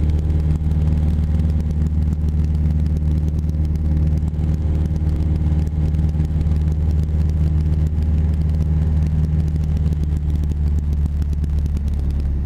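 Cessna 172's piston engine and propeller running steadily in cruise flight: a constant low drone with wind noise rushing over the outside camera. Near the end the drone turns duller and the wind noise drops as the sound switches to the cockpit.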